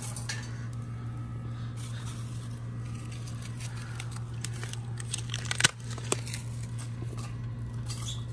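Scattered crackles and snaps of small twigs and kindling in a small wood-burning gasifier stove, with one sharper snap about five and a half seconds in, over a steady low hum.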